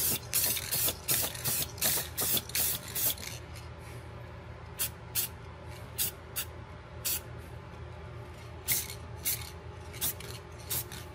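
Aerosol spray can of enamel paint hissing in short bursts: a quick run of bursts in the first three seconds, then fewer, spaced-out bursts, over a steady low hum.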